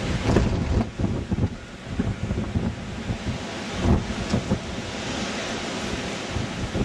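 Gusty wind buffeting the microphone: a rough, uneven rumble that swells and dips with each gust.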